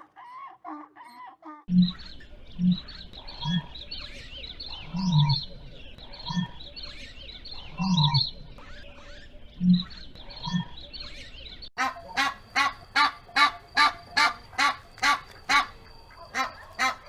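Animal sounds in two clips: first a string of short low calls about once a second with small birds chirping behind, then, after a sudden cut about two-thirds through, waterfowl calling rapidly, about two to three calls a second.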